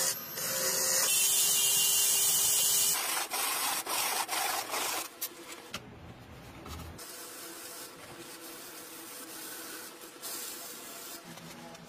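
Woodturning on a lathe: a tool and then hand-held sandpaper working the spinning wood make a steady hissing rasp. It is loud for the first three seconds, turns choppy, and is quieter from about five seconds in.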